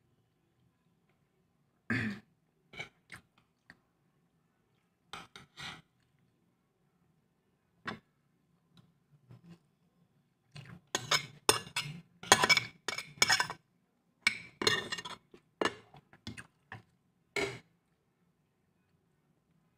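Eating sounds: short clinks and clatters of a spoon and fingers against a plate, with chewing, scattered at first and coming thick and fast for a few seconds past the middle.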